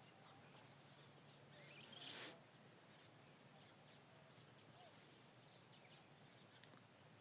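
Near silence: faint outdoor ambience with a steady high insect trill, a few faint bird chirps and a brief soft rush of noise about two seconds in.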